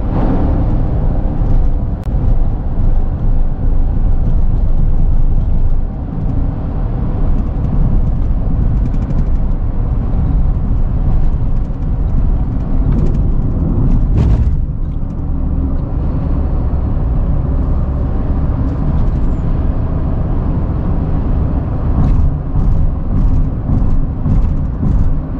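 Steady low rumble of a car driving at road speed, heard from inside the cabin: engine and tyre noise on pavement.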